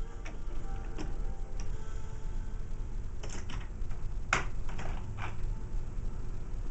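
Wooden toy train pieces clicking and clacking as a child handles them on a train table: a few light clicks, then a cluster of sharper knocks a few seconds in.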